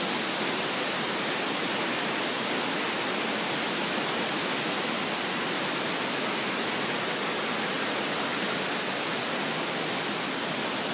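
Steady rush of the Misol-Ha waterfall, an even hiss of falling water, growing slowly a little fainter.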